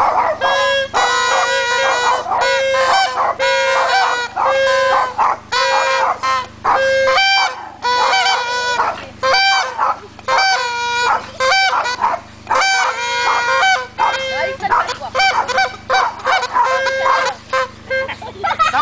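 Several small trumpets played together in a rough tune of short held notes, with brief gaps between phrases.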